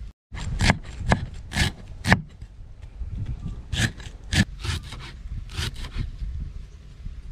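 Knife cutting food on a wooden cutting board: a string of short, sharp strokes at uneven intervals.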